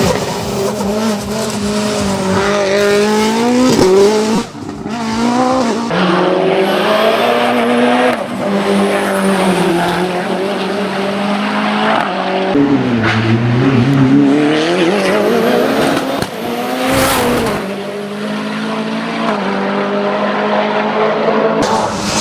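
Mitsubishi Lancer hillclimb prototype's engine driven flat out. Revs climb through the gears and drop sharply on lifts and downshifts several times.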